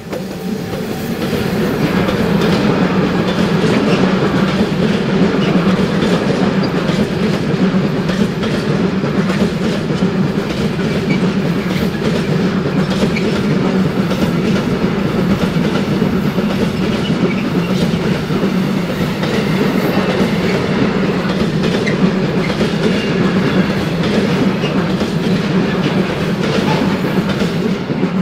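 Long freight train of container wagons, hauled by an ÖBB Taurus electric locomotive, rolling past close by: loud, steady wheel-on-rail noise with a stream of clicks, swelling over the first couple of seconds and dropping off sharply as the last wagon passes at the end.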